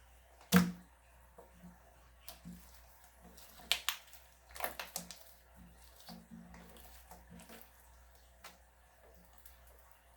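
Slime being squeezed and poked by hand: irregular wet clicks and pops, the loudest about half a second in.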